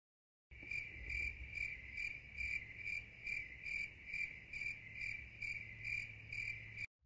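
Outdoor chorus of high-pitched chirping, pulsing a little more than twice a second, starting about half a second in and cutting off abruptly near the end.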